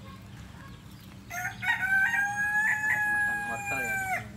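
Rooster crowing once: a single long call of about three seconds, starting about a second in, holding its pitch and dropping away at the end.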